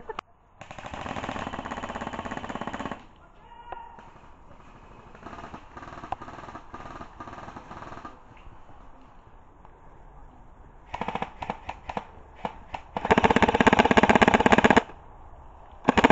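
Airsoft electric rifles firing full-auto in repeated bursts, a fast even rattle: a long burst early on, fainter bursts in the middle, a string of short bursts, then the loudest long burst near the end.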